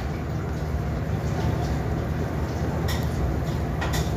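Steady low rumble throughout, with a wooden spoon stirring and mashing thick porridge in an aluminium pot, knocking lightly against the pot twice near the end.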